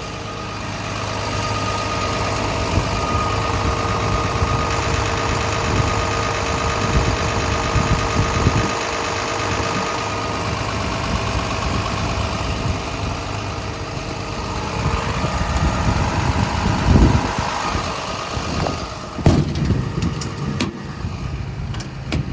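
Komatsu PC210LC-10 excavator's diesel engine idling steadily, with a few sharp knocks near the end.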